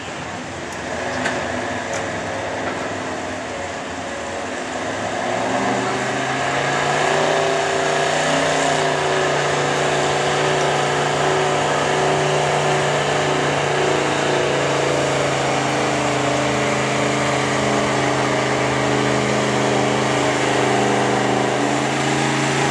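Gas engine of a late-1970s Chevrolet 4x4 pickup pulling a weight sled at full throttle. The engine note climbs about five seconds in, then holds steady at high revs under load.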